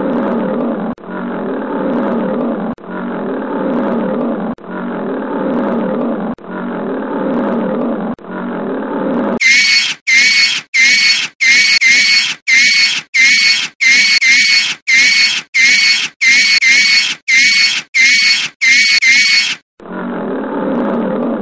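Cartoon lion roar sound effect repeated back to back, six roars of about two seconds each. About nine seconds in it switches to a quick run of short high-pitched cartoon mouse squeaks, roughly three every two seconds, each with a quavering whistle. Near the end the roar comes once more.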